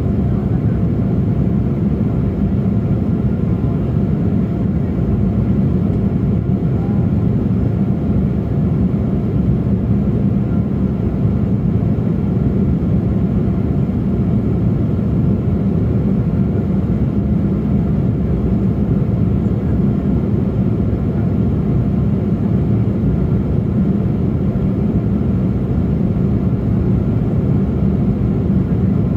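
Steady cabin noise of a KLM Embraer E175 in flight, heard from a window seat over the wing: the deep even rush of its two GE CF34 turbofan engines and the airflow, with a faint steady tone above it.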